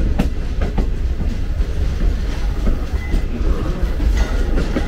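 Green Line Express passenger train running along the track: a steady low rumble from the moving carriage, with irregular clicks and knocks from the wheels over the rails.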